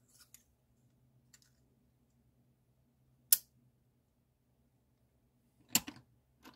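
Solid metal prop credit bars clicking against each other as they are handled and set down: a few faint ticks, one sharp click about a third of the way in, and a short cluster of clicks near the end.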